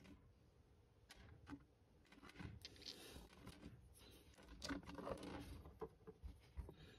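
Faint handling sounds of miniature glass soda bottles: a scatter of small clicks, knocks and scrapes as they are picked up and set down on a tabletop and in a plastic crate, busiest past the middle.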